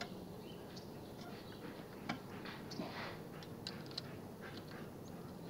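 Faint, scattered light clicks and small metal ticks from hand work on a bicycle's rim brake during adjustment.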